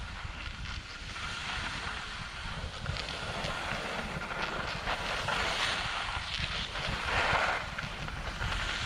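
Skis hissing and scraping over packed snow during a downhill run, with wind rumbling on the camera's microphone. The scraping grows louder about two-thirds of the way through.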